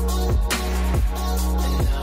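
Electronic background music with a steady beat, about two beats a second, over a deep sustained bass.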